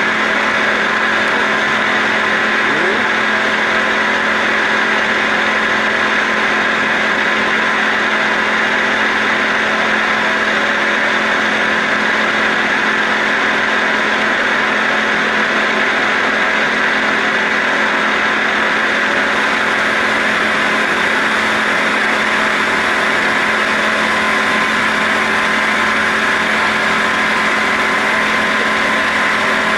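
CNC roll-turning lathe cutting a large metal roll: a steady machine hum with constant tones under a noisy hiss, unchanging in level.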